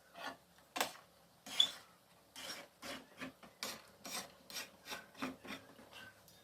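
Short, irregular abrasive strokes on wood, about two a second, like hand filing or rubbing a wooden piece.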